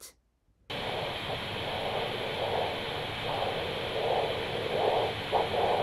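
Handheld Doppler ultrasound unit picking up blood flow at the brachial artery of a patient with a left ventricular assist device (LVAD): a steady hiss with a subdued, alternating whooshing that swells and fades over and over, the LVAD's flow signal rather than a distinct heartbeat. It starts just under a second in.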